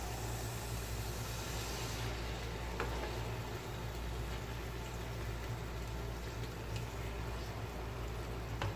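Mutton liver with onion and tomato sizzling and bubbling in its juices on a flat iron tawa while a spatula stirs it, with two sharp knocks of the spatula on the griddle, about three seconds in and near the end.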